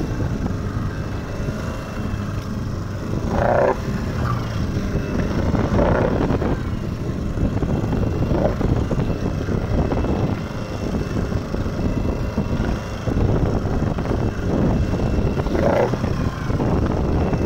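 A fishing boat's engine running steadily, mixed with wind on the microphone and waves splashing against the hull, with a few short louder sounds over it.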